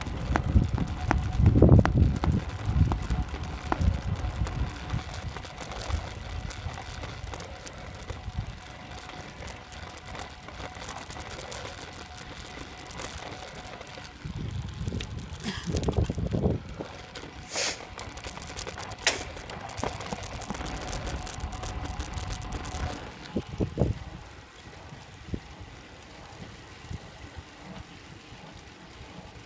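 Wind noise buffeting the microphone of a camera riding on a road bicycle, coming in low gusts, over steady road and tyre noise. A few sharp clicks come a little past the middle.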